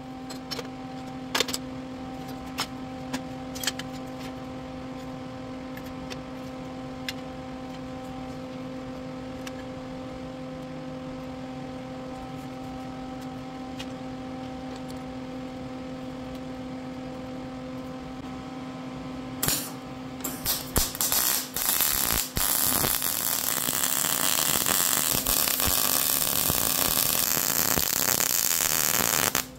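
Steel angle-iron pieces clicking and knocking as they are set and clamped on a steel welding fixture table, over a steady hum. About twenty seconds in, a Lincoln Electric Weld-Pak 175 HD MIG welder on argon-CO2 gas strikes an arc. It gives a few short sputtering bursts, then a continuous, loud crackling weld to the end.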